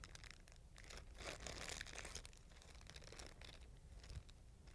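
Faint crinkling and rustling of a syringe's plastic peel-pack wrapper as the syringe is pulled out of it.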